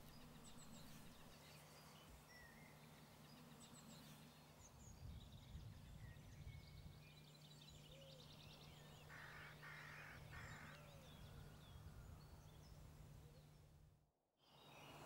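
Faint woodland ambience: scattered faint songbird chirps over a low steady hum, falling to silence about fourteen seconds in.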